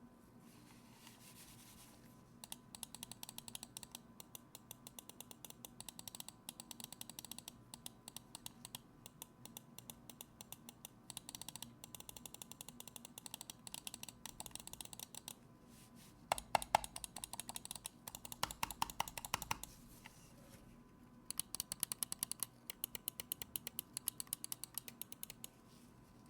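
Typing on a mechanical keyboard fitted with Kailh Black Mamba switches: rapid runs of keystroke clicks with short pauses between them, the loudest, heaviest strokes about two-thirds of the way through.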